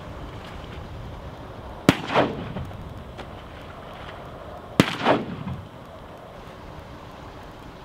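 Two shotgun shots about three seconds apart, each followed by a short echo that dies away.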